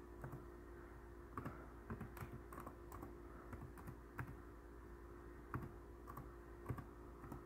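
Faint, irregular keystrokes on a computer keyboard: someone typing a file name.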